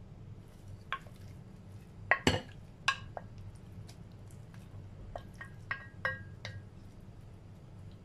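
A glass dish and a wooden spoon knocking and clinking against a bowl as omelette pieces are scraped into soup: a string of light taps and clinks, the loudest about two seconds in, several later ones ringing briefly.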